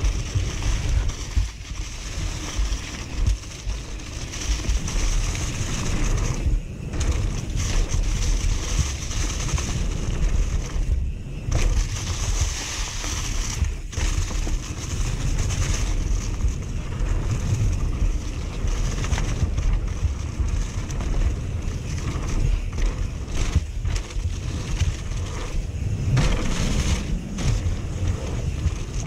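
Mountain bike running fast down a forest trail: wind buffeting the on-bike camera's microphone over the rumble of tyres rolling across dry leaves and packed dirt.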